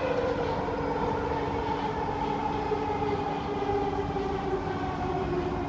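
Kawasaki–CSR Sifang C151A metro train heard from inside the carriage: steady running rumble with the traction motors' whine slowly falling in pitch as the train slows.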